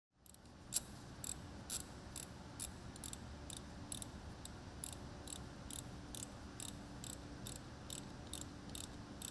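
Steady, evenly spaced ticking, a little over two sharp clicks a second, over low background room noise.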